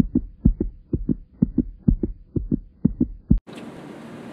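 Heartbeat sound effect: fast paired lub-dub thumps, about two beats a second, that cut off abruptly about three and a half seconds in. After the cut comes the steady hum of a car cabin.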